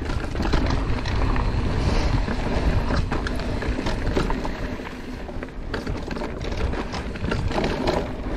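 Mountain bike descending a rocky dirt trail: a steady low rumble of wind buffeting the microphone and tyres rolling over dirt, broken by frequent small clatters and knocks as the bike rattles over rocks.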